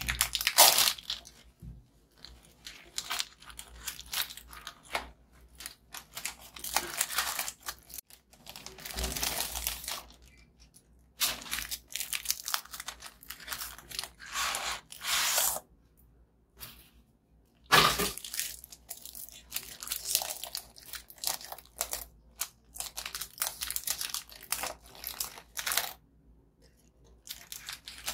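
Plastic biscuit wrappers crinkling and tearing open in irregular spells, with crunching, and one sharper crack about eighteen seconds in.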